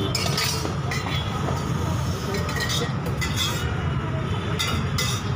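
Busy street-stall ambience: a steady low traffic rumble with occasional clinks of dishes and utensils.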